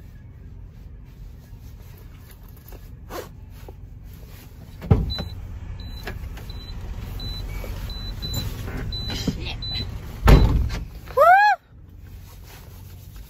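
Handling noises around a semi truck at a fuel stop, over a steady low rumble: a heavy thump, a run of short high beeps, a second heavy thump, then a brief rising squeal.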